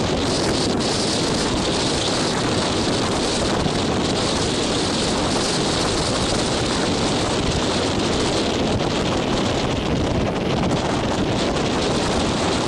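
Strong wind buffeting the microphone over rough surf breaking on the shore, a steady unbroken noise with no distinct engine sound.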